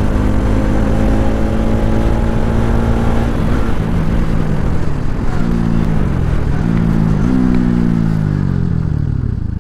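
Bajaj NS200 motorcycle's single-cylinder engine running at a steady pitch, then dropping as the throttle is closed about three and a half seconds in. The engine note then jumps up and falls away three times, as on downshifts while the bike slows, ending in one long falling note.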